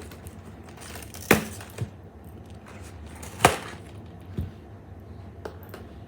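A handful of short, sharp knocks, the loudest about three and a half seconds in.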